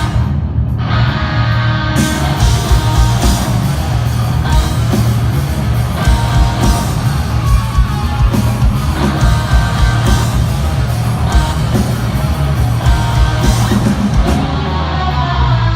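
Loud live heavy rock band playing: electric guitar over bass and drums, with a dense, driving low end.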